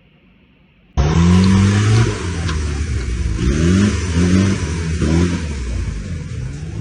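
An off-road 4x4's engine cuts in suddenly about a second in and runs hard, revving up several times in rising climbs.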